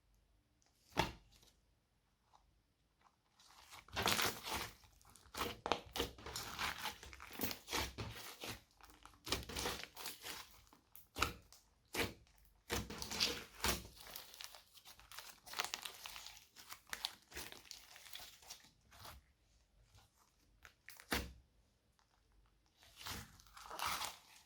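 Glossy slime with beads mixed into it being squished and worked, crackling and crunching in irregular bursts, with a single sharp pop about a second in and another near the end.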